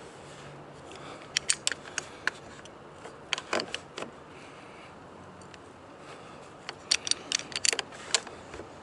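Short sharp clicks and taps in three bunches from hands tightening the plastic mounting nut of a USB charger port into a plastic dash panel.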